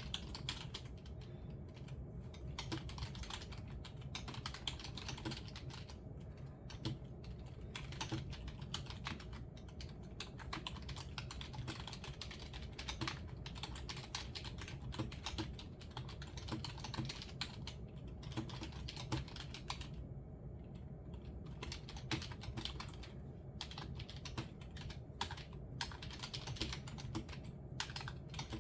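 Typing on a computer keyboard: a steady patter of key presses with a few short pauses, over a faint low hum.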